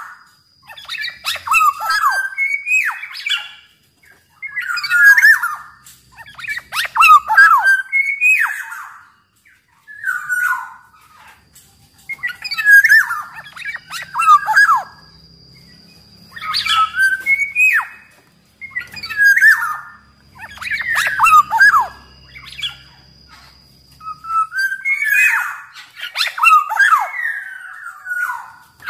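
Black-naped oriole singing: about ten short phrases of fluty, gliding whistles mixed with harsh rasping notes, one phrase every two seconds or so.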